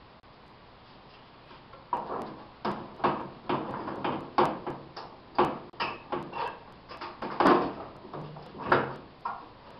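An irregular series of knocks and clunks, one or two a second, as a sandpaper-wrapped sanding drum is handled and set into place on a drum sander that is not running. The knocks begin about two seconds in.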